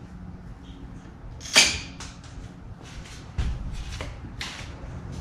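A sharp clack about one and a half seconds in, followed by a run of lighter clicks and knocks. A low rumble joins a little past the halfway point.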